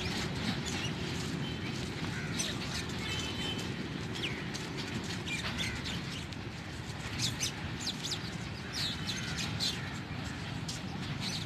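Birds chirping, with short high calls scattered all through, over a steady low background rumble.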